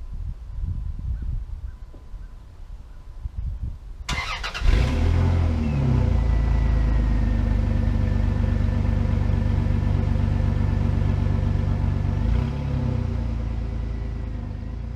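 Wind buffeting the microphone, then about four seconds in a Dodge Dakota pickup's engine starts with a short flare and settles into a steady idle through its full-length exhaust.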